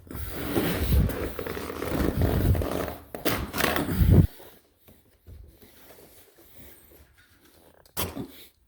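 Carpet being pulled up and dragged across the floor: a rough tearing and scraping for about four seconds, then quieter rustling and handling, with a short knock near the end.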